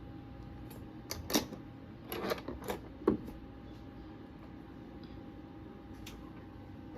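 Handling noise of small objects: a few sharp clicks and rustles about a second in and again around two to three seconds in, then one faint click near the end, over a faint steady hum.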